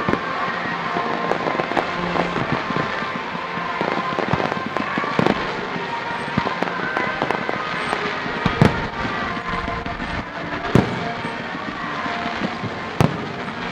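Aerial fireworks going off in a display: a constant crackle of small bursts with frequent sharp bangs, the three loudest coming in the second half, about two seconds apart.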